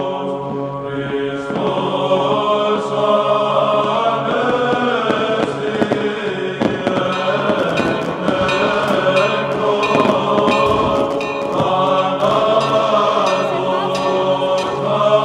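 Greek Orthodox Byzantine chant: voices singing a melody over steady held notes, with a scatter of sharp cracks in the middle.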